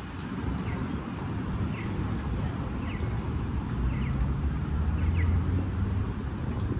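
Street traffic: a steady rumble of passing vehicles, with one engine's low hum strongest about four to five seconds in. Short high chirps repeat about once a second over it.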